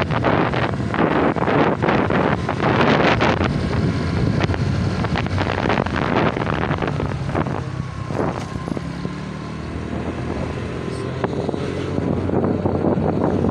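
Motor scooter being ridden: a low, steady engine hum under heavy wind buffeting on the microphone. The gusts are strongest in the first few seconds and ease for a few seconds past the middle.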